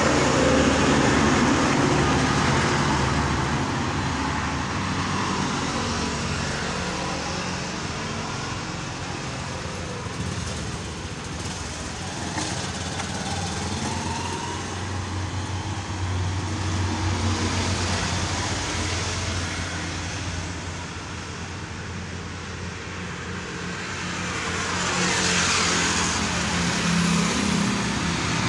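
Outdoor road-traffic noise: a continuous rumble that swells louder a few times as vehicles pass.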